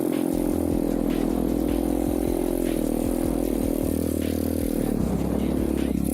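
Irbis TTR 125 pit bike's single-cylinder four-stroke engine running while riding, holding a steady pitch that dips briefly about five seconds in and then rises again.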